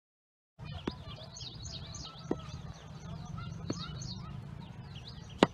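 Many small birds chirping and twittering over a steady low outdoor rumble, with a few sharp clicks, the loudest just before the end.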